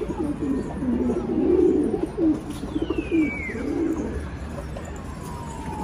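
Domestic pigeons cooing close by, several low warbling coos one after another, loudest in the first half.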